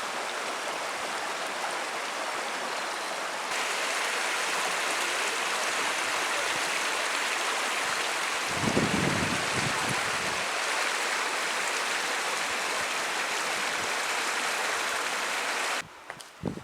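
Steady rush of a mountain stream, a little louder from about three and a half seconds in, with a brief low buffeting about halfway through. The rush cuts off suddenly near the end.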